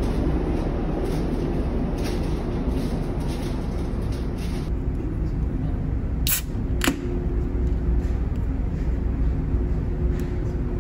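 Steady low drone of the ferry's engines heard inside the ship, with two sharp clicks a little over half a second apart past the middle.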